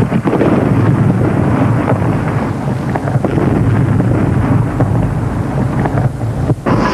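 Fireworks display shells launched from mortars and bursting in quick succession, merging into a loud, continuous rumble.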